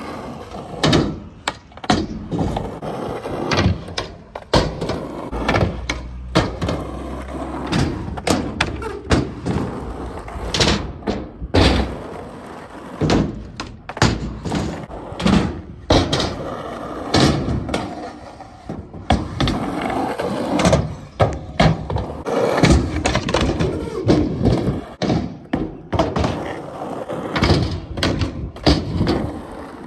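Skateboard riding: the wheels roll over rough pavement and ramps, broken up again and again by sharp clacks and heavy thuds of the board hitting, popping and landing on the ramps.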